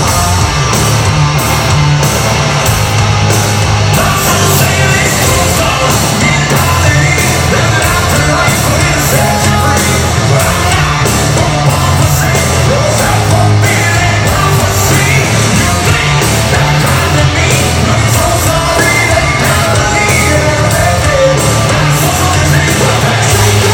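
Hard rock song: distorted electric guitars, bass and drums, loud and steady, with a shouted, sung male lead vocal coming in a few seconds in.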